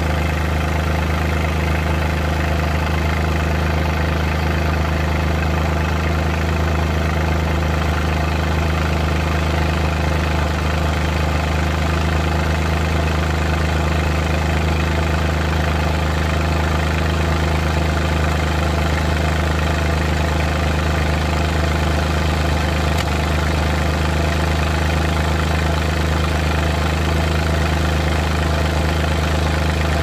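Suzuki Multicab's F6A three-cylinder engine running steadily, heard at the tailpipe, broken by random misfires that sound as an irregular "tak... takatak... tak" in the exhaust.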